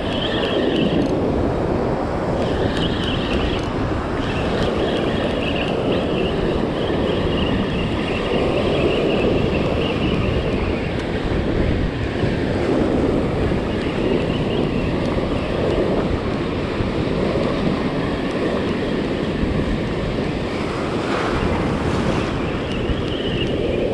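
Surf washing up over the sand around the feet, with wind buffeting the microphone: a steady rushing noise.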